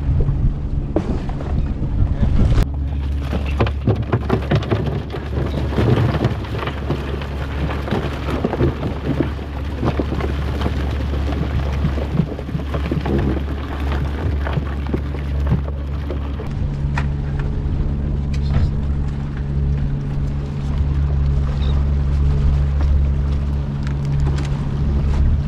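Jon boat's outboard motor running steadily while trawling, its low hum shifting slightly about two-thirds of the way through, under a dense, continuous crackle of small clicks and splashing.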